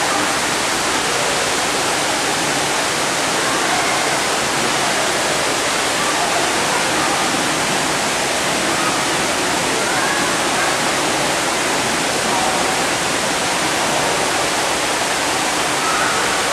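Steady rush of water pouring and splashing into a shallow pool, with faint voices in the background.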